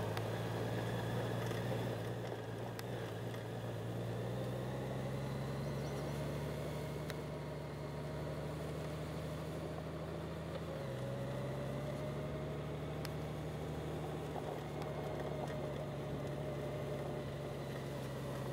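Honda Gold Wing's flat-six engine running steadily under way, its pitch stepping down slightly about eleven seconds in.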